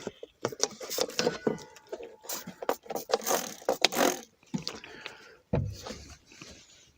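Trigger spray bottle of soapy water squirted in short hissing bursts onto the new propane changeover valve's fittings, with clicks and handling knocks between sprays: a bubble leak check on the gas connections.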